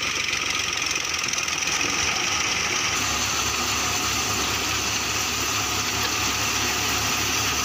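Tractor-driven wheat thresher running steadily under load as dry wheat stalks are fed in, its drum and fans mixed with the tractor's engine in a continuous machine noise. The tone of the noise shifts about three seconds in.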